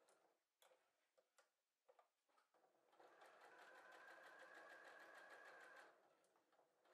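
A few light clicks as fabric is handled at the needle plate, then an electric sewing machine stitching for about three seconds: a steady hum with fast, even stitch ticks that stops abruptly.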